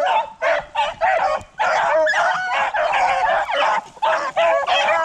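A pack of beagles baying in full cry while running a rabbit, several dogs giving voice at once in overlapping calls, with only brief lulls.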